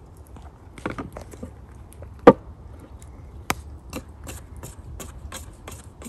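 A wooden spoon stirring flour into sticky bread dough in a stainless steel bowl, knocking against the bowl about three times a second in the second half. A single loud, sharp knock comes a little over two seconds in.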